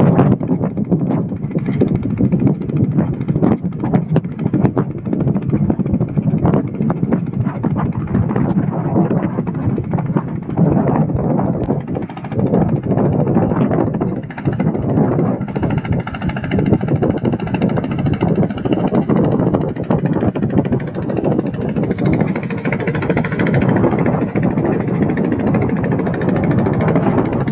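Engine of a wooden river boat running steadily under way as it passes, with wind buffeting the microphone.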